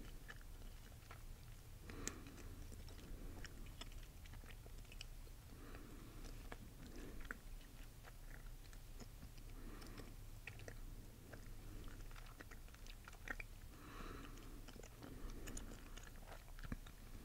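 Chewing gum close to a microphone: soft wet smacks and small mouth clicks at an irregular pace, with a few sharper clicks.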